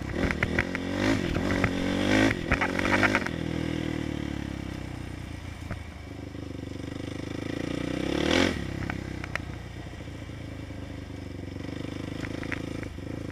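A 450 sport quad's single-cylinder four-stroke engine, revving in quick blips over the first three seconds, then running steadily with one more rev about eight seconds in. The engine is being ridden to bring it up to operating temperature for fuel tuning.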